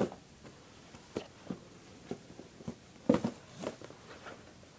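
Cardboard product boxes being handled and set down on carpet: a scatter of short light taps and knocks, the loudest about three seconds in.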